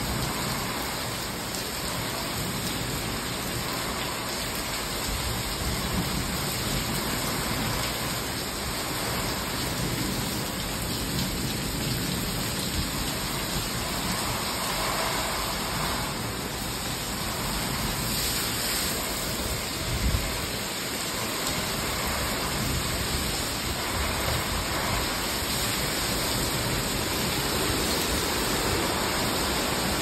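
Heavy rain pouring down in strong, gusty wind: a steady rushing hiss, with one brief low thump about two-thirds of the way through.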